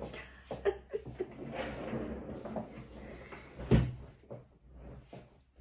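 A person settling into a padded gaming chair at a desk: rustling and shuffling with a few small knocks, and one heavy thump about two-thirds of the way through as she drops into the seat.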